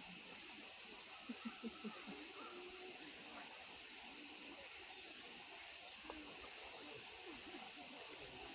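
Steady, unbroken high-pitched insect chorus, an even hiss that holds at one level throughout.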